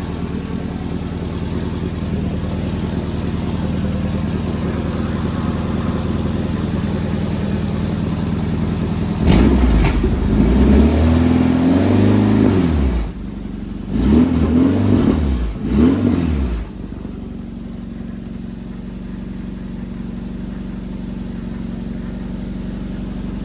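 1993 Nissan 240SX's KA24DE 2.4-litre four-cylinder engine, freshly rebuilt and on its first test run, idling steadily. About nine seconds in it is revved up and down, then blipped twice more, and it settles back to idle.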